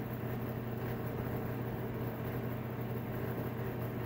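A steady low hum with an even background hiss, unchanging throughout, with no knocks or cutting sounds.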